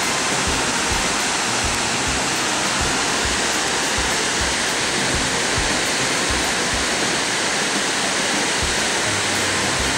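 Steady rushing roar of a waterfall: loud, even water noise.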